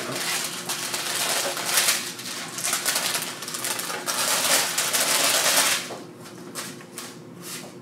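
Parchment paper crinkling and rustling as its edges are lifted toward the middle to toss toasted granola with nuts and dried fruit, the loose oats shifting on the paper. It eases off about six seconds in, leaving a few light ticks of a spatula in the granola.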